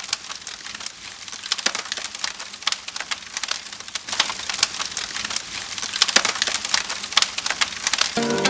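Fire crackling: many small, irregular pops and snaps over a steady hiss. Music comes in near the end.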